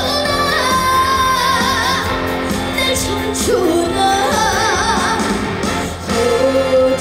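A woman singing a song with vibrato on held notes, over loud instrumental accompaniment, performed live through a PA.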